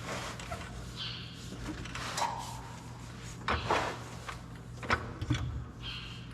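Shop work noise: scattered metal clunks and scrapes as a tractor transfer case is handled and fitted back in place, the loudest a little after the middle, over a steady low hum.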